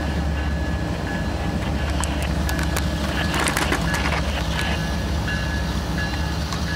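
Diesel locomotives running with a steady low rumble as they approach, just after their horns stop. A bell rings repeatedly over it. About three to four seconds in there is a short stretch of rustling noise.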